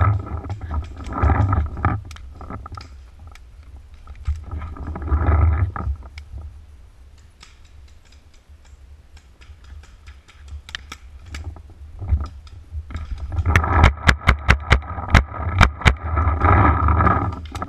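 Dry branches and brambles scraping and crackling against a GoPro camera as it is pushed through dense undergrowth, in three loud surges of rustling. A quick run of sharp cracks comes during the last surge.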